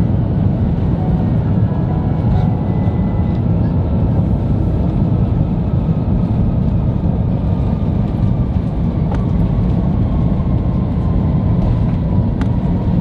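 Cabin noise of an Airbus A350-900 rolling out after landing: a loud, steady low rumble from the wheels and its Rolls-Royce Trent XWB engines, heard from inside the cabin, with a faint whine slowly dropping in pitch.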